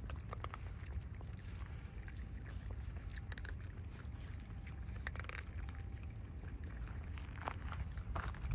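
Raccoon dogs feeding on gravel: scattered small clicks and crunches from chewing and from paws shifting on the stones, over a low steady rumble.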